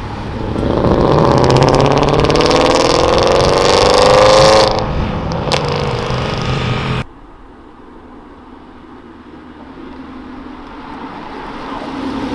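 Audi A4 saloon accelerating hard away, its engine note rising steadily for about four seconds and then easing off. It cuts off suddenly about seven seconds in, and a quieter Porsche 911 Cabriolet flat-six grows louder as it approaches near the end.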